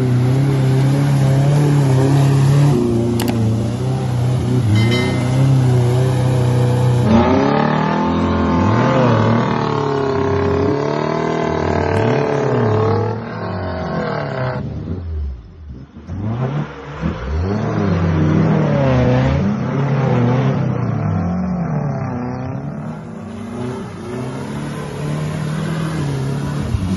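Off-road 4x4 engine running steadily, then revved hard again and again, its pitch swinging up and down every second or so as it works through mud. The engine briefly drops off about halfway through.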